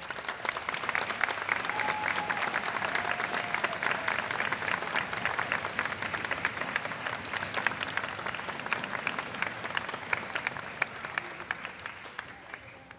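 A large audience applauding: many hands clapping together, starting suddenly and dying away near the end.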